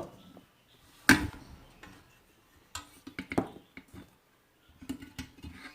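Scattered knocks and light clatters of a couscoussier steamer pot being handled as garlic-stuffed dried figs go into it, the sharpest knock about a second in.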